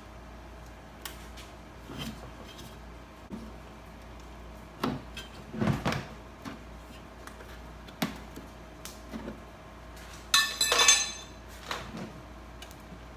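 A hooked pry bar levering the lens off a 2008 Mercedes C300 headlight housing, breaking the heat-softened glue seal: scattered clicks and knocks of metal on plastic, and a louder crackling stretch about ten seconds in.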